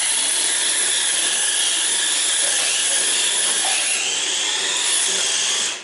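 Small electric motor of a mini high-speed RC car whining at speed, its pitch wavering up and down as the car speeds up and slows. It cuts off suddenly near the end.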